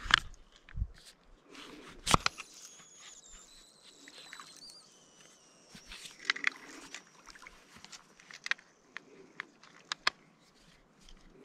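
Scattered small clicks and knocks with a sharper knock about two seconds in, and a faint high, wavering whistle from about two and a half seconds in to about eight seconds in.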